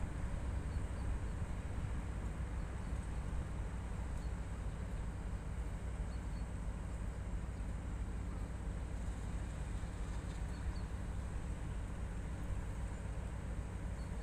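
Class 56 diesel-electric locomotive's engine idling with a steady low hum.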